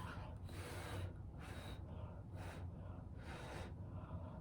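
A person blowing hard, repeated short puffs of breath onto wet acrylic paint to push it across the canvas in a Dutch pour, each puff a separate rush of air with short pauses between.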